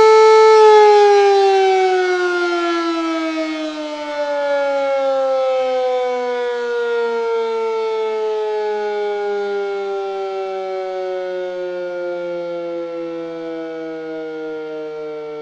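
Air-raid siren winding down: a steady wailing tone that, under a second in, begins a long slow fall in pitch and fades as the rotor spins down.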